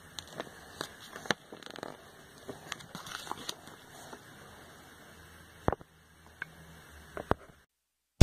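Scattered light clicks and taps, the sound of small objects being handled, over a low background hiss. The track cuts to dead silence near the end.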